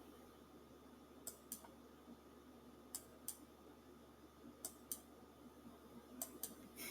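Near-silent room tone with faint, sharp clicks, mostly in pairs, coming about every one and a half seconds and a little closer together near the end.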